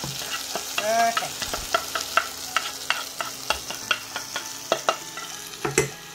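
Onion and tomato masala sizzling in a frying pan. A small metal spoon taps and scrapes spices out of a wooden spice bowl into the pan, making a run of irregular sharp clicks, with a louder knock near the end.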